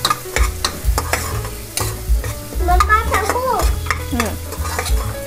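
Steel spoon stirring and scraping onion and ginger-garlic paste frying in oil in a pressure cooker, with repeated clicks of the spoon against the pot over a faint sizzle. The paste is being fried until its raw taste cooks off.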